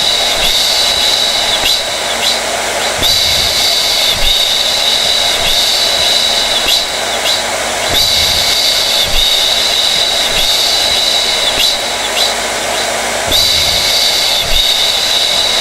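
Electric hair dryer running steadily: a constant rush of blown air with a high motor-and-fan whine that wavers slightly.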